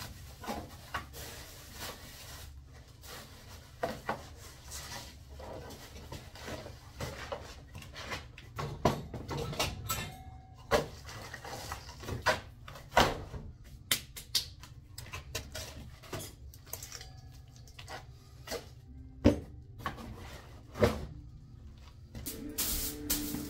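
Irregular knocks, clicks and clatter of objects being picked up, moved and stacked while clearing clutter, with a few sharper knocks in the second half, over a low steady hum.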